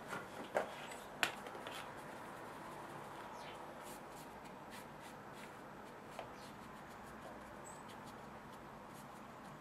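Flat watercolour brush dragged across paper, a faint scratchy brushing, with two sharp clicks in the first second or so.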